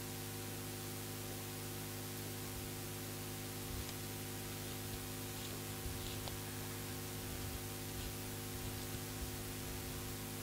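Steady electrical mains hum, a buzz with many evenly spaced overtones, over constant hiss. A few very faint soft rustles show through.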